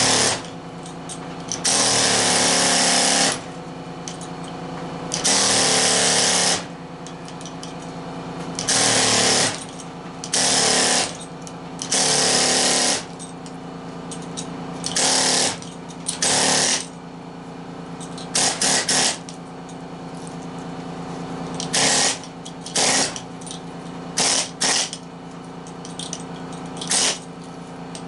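An air-powered tool works on the copper windings of scrap electric motors in more than a dozen loud bursts, each lasting about half a second to one and a half seconds. The bursts get shorter and choppier after about two-thirds of the way through. A steady hum from the running shop equipment goes on underneath.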